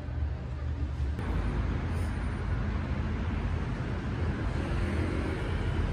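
Steady road traffic noise, a low rumble of passing cars. About a second in there is a sudden change from a deeper, steadier vehicle rumble to a broader street hiss.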